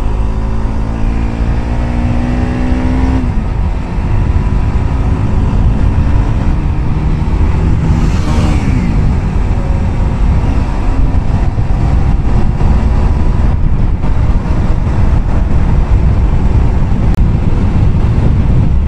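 Motorcycle engine accelerating, its pitch rising for about three seconds until a gear change, then running at speed under a heavy low rumble. A brief whoosh comes about eight seconds in.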